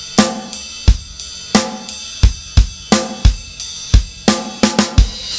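Acoustic drum kit played in a steady rock beat, bass drum and snare alternating under cymbals. Near the end a quicker run of hits leads into a cymbal crash.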